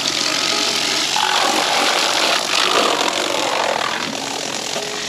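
Water spraying hard from a garden hose nozzle onto a robotic lawn mower's shell: a loud, steady hiss that eases slightly near the end.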